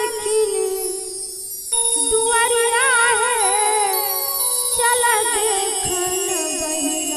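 A woman's solo voice singing a Shiv charcha devotional song through a microphone, with long drawn-out notes and wavering ornaments. There are two phrases, with a short breath between them about a second and a half in.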